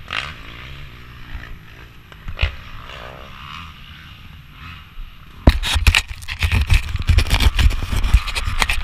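Handling noise on an action camera: faint rustling, then from about five and a half seconds in, loud close-up scraping and knocking as the camera is grabbed and moved.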